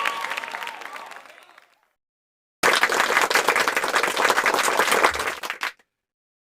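A crowd's cheering and applause fades away over the first second and a half; after a short gap of silence, a crowd applauds for about three seconds, a dense even patter of clapping that cuts off suddenly.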